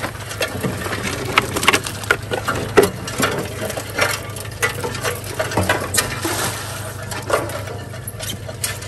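Crawfish being sorted by gloved hands on a stainless steel sorting table: irregular clicks and knocks of shells and bait against the metal grate and tray. A low steady hum from the boat's idling outboard motor runs underneath.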